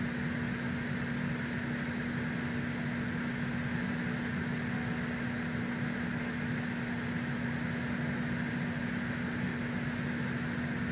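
Steady machine hum with one constant low tone over an even hiss, unchanging throughout.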